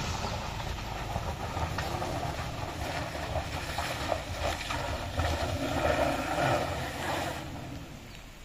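Toyota Fortuner's engine revving hard under load as the SUV tries to climb a rough off-road track, getting louder about five to seven seconds in and then easing off. The climb attempt fails.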